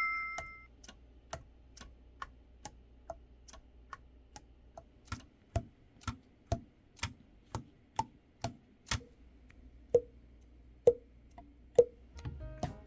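Soprano saxophone keys being pressed and released in a steady rhythm, about two clicks a second. They are faint at first and louder from about five seconds in, and some clicks carry a short hollow pop as a pad closes on a tone hole.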